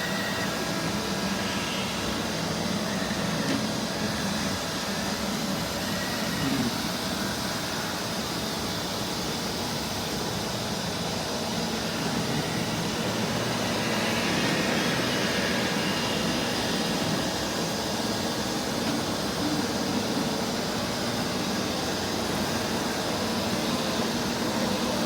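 Neato Botvac robot vacuum running steadily as it drives in a straight line across carpet in its hidden test mode, an even motor and suction hum.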